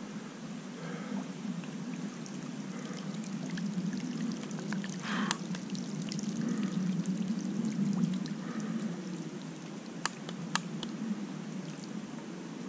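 Shallow trout stream flowing and gurgling steadily, with a few sharp ticks about ten seconds in.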